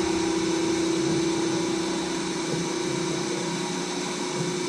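Slotting head on a milling machine running: a steady motor whine with a rough, uneven knock underneath, a knocking noise that has not yet been cured.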